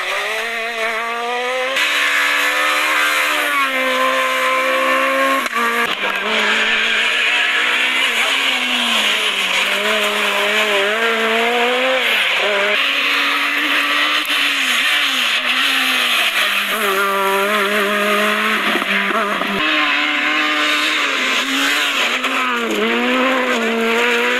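Kit car and Super 1600 rally cars, among them a Peugeot 306 Maxi and a Citroën Saxo S1600, with their engines revving high. The pitch climbs and drops again and again through gear changes and lifts. The sound jumps abruptly from one car to the next several times.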